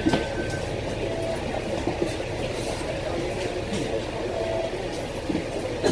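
Double-decker bus running on the road, heard from inside the cabin: a steady low rumble of engine and road noise with light rattles. A short high beep sounds right at the start.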